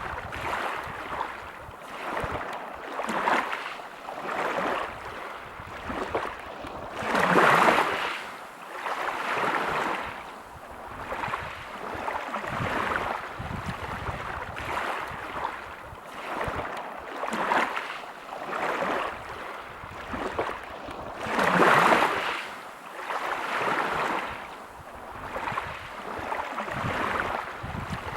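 Waves breaking on a pebble beach, the surf swelling and fading every couple of seconds. Two bigger waves break about 7 seconds and 21 seconds in.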